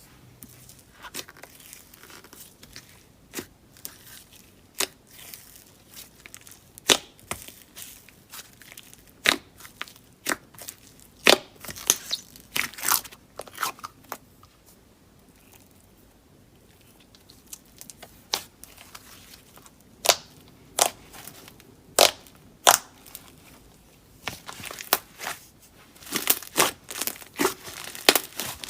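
Slime being squeezed and worked by hand, giving a string of sharp pops and crackles. They come about one a second at first, pause briefly in the middle, then come thick and fast near the end.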